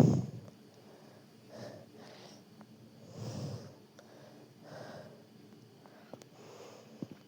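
A person breathing heavily in and out, one airy breath about every second and a half, the loudest at the very start.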